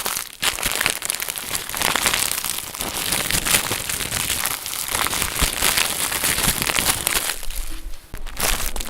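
Foley sound: a dense, continuous run of crinkling and crackling, dipping briefly about a second before the end.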